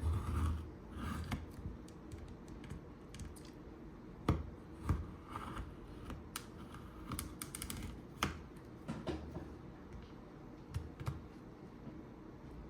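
Irregular sharp clicks and taps of a tool prying the old screen loose from a smartphone's frame.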